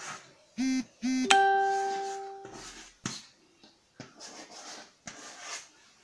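A short three-note chime: two brief low notes, then a higher note that rings and fades over about a second. Around it are short scratchy strokes of chalk being written on a chalkboard.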